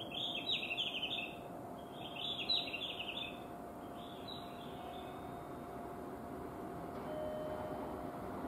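Small birds chirping in three short bursts during the first half, over a steady low hum. Toward the end, the faint rumble of an approaching train starts to rise.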